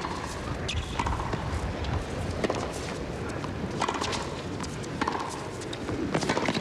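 Tennis rally on a hard court: a serve and then sharp pocks of racket strikes and ball bounces every second or so, over steady background noise.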